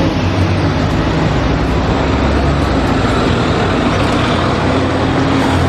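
Red double-decker city bus engine running with a steady low hum as the bus moves along the street, over general road traffic noise.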